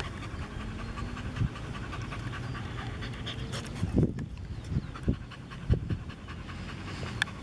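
A dog panting quickly and evenly at close range, tongue out after running. A couple of low thumps sound about four and six seconds in.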